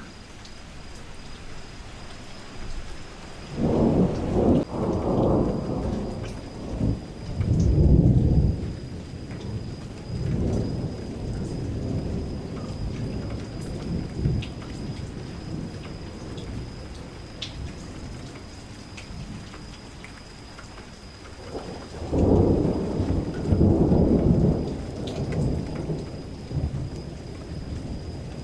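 Thunderstorm: steady rain with rolling thunder. A long rumble begins about three and a half seconds in and rolls on for several seconds, fading out over the next few. A second loud peal comes about twenty-two seconds in.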